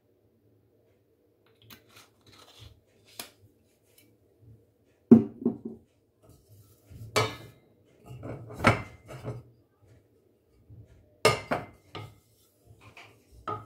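Scattered knocks and clinks of cookware being handled: a wooden spatula and a stainless steel pot knocking on an electric stove top. The sharpest knock comes about five seconds in, with several more through the middle and another near the end.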